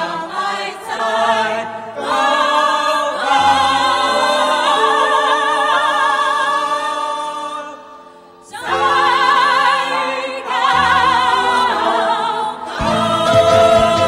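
Choir singing long held notes with vibrato over instrumental accompaniment. The music drops away briefly about eight seconds in, then comes back, with a deeper bass line entering near the end.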